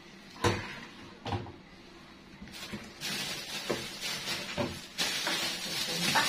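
Two short knocks about a second apart, then a plastic bag of vegetables rustling as it is handled, louder near the end.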